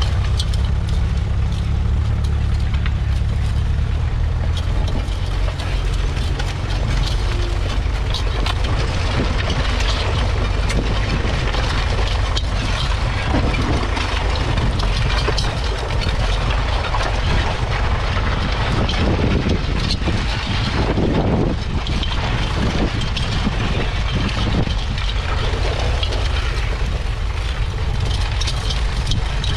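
1953 Ferguson TEF20's 2.1-litre four-cylinder diesel engine running steadily under load while pulling a two-furrow mounted plough, with the rattle and rustle of the plough turning soil close by.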